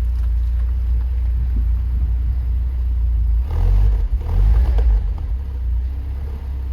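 Volvo 940 turbo's four-cylinder turbo engine idling through a newly fitted Simons exhaust with a steady low rumble. About three and a half seconds in, a brief rise in revs is louder, and then it settles back to idle.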